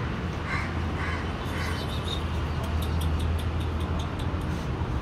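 A crow cawing three times in quick succession, about half a second apart, over a steady low hum.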